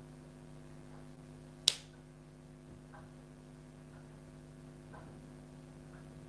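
Faint steady electrical hum in a small room, with one sharp click a little under two seconds in and faint soft ticks about once a second.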